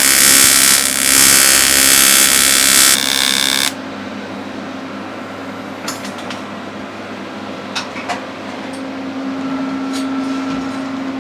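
Die grinder working on a cracked cast iron gear, V-ing out the crack ready for a silicon bronze repair. For the first three and a half seconds the burr bites the metal with a loud, harsh grinding. Then the grinder runs on with a steady hum and a few light ticks of contact.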